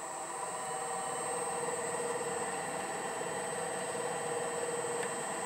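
MN-80 lathe running steadily with a high whine and a hum of several tones, its chuck spinning a hex bar while a centre drill in the tailstock centres the bar's end.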